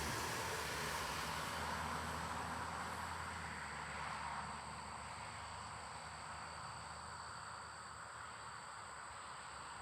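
A low engine rumble and rushing noise fading away over the first few seconds, with a steady high-pitched insect chirring that runs throughout.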